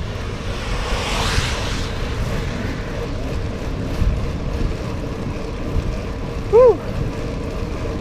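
Wind buffeting a handlebar-mounted microphone on a moving bicycle, with its tyres rolling on wet asphalt; about a second in, an oncoming car's tyres hiss past on the wet road. Near the end comes one short rising-then-falling tone, the loudest sound.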